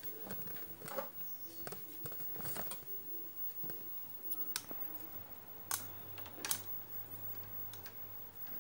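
Irregular light clicks and taps of multimeter test probes and leads being handled against a TV circuit board. A few sharper clicks stand out, the loudest pair near the middle.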